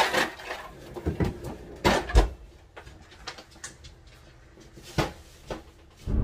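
Scattered household knocks and clicks, like cupboard or door handling in a small kitchen, with the sharpest ones about one second, two seconds and five seconds in.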